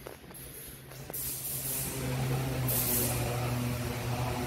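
A heavy-equipment diesel engine running at a steady speed, a low hum that comes up about a second in, with two short bursts of hiss.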